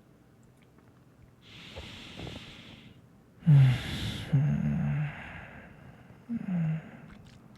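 A man's breath close to the microphone, followed by a voiced sigh and soft hums whose pitch falls.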